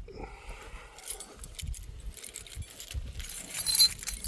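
A bunch of keys jangling and clinking as it is handled, busiest near the end.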